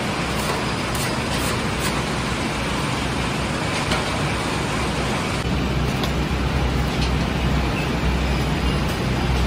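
Bakery dough-sheeting machine running: a steady mechanical drone with a low hum that grows louder about halfway through. A few light scrapes of a hand scraper on the steel dough trough come in the first two seconds.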